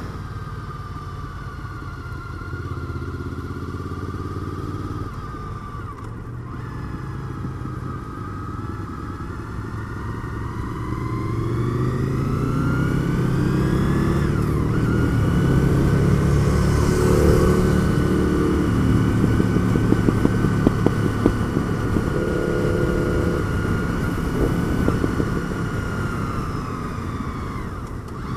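Honda VFR800's V4 engine running under way, heard from the rider's seat. The pitch climbs over several seconds as it accelerates, drops sharply once about halfway through at a gear change, then climbs again and holds.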